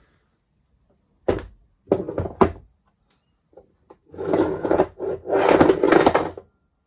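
Hand-handling noise of milling machine accessories: a few sharp knocks as parts are picked up and set down, then two longer stretches of scraping and shuffling.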